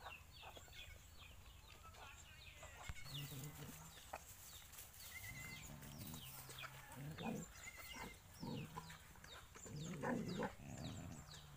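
Faint animal sounds from dogs and puppies at their food dishes: several short low calls and a few brief noisy bursts, with many small high chirps throughout.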